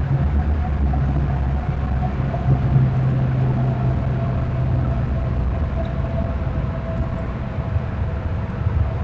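Steady low rumble with a held low hum and a fainter higher hum, like distant vehicle traffic.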